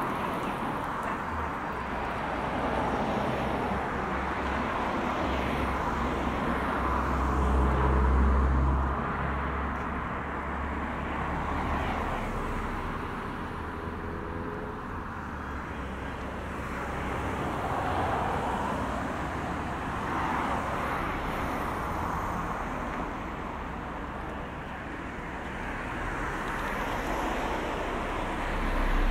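Road traffic: cars passing one after another, swelling and fading, with an engine's low rumble loudest about eight seconds in.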